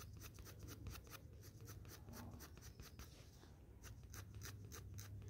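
Black Doms colour pencil shading on sketchbook paper with light, quick back-and-forth strokes: a faint, rapid scratching, several strokes a second.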